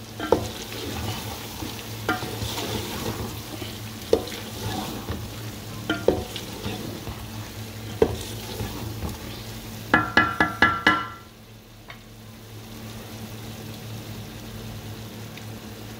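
Wooden spatula stirring chicken kofta and bitter gourd masala in a metal pot over a steady frying sizzle. The spatula knocks against the pot about every two seconds. A bit past the middle comes a quick run of ringing taps on the pot, after which only the sizzle goes on.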